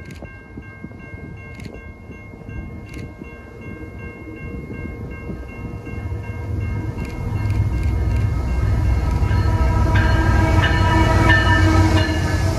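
CN intermodal freight train approaching and passing close by: the diesel locomotive's rumble grows steadily louder and is loudest as the engine reaches the camera near the end. A few steady high tones run underneath from the start.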